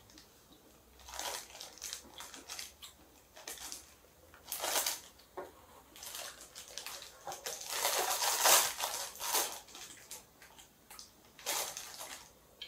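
Close mouth sounds of someone eating a sour candy ball: wet chewing and sucking in irregular bursts, the loudest run a little past the middle.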